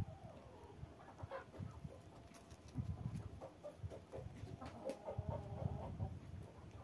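Chickens clucking quietly in short, low calls while feeding, with a run of clucks close together near the end.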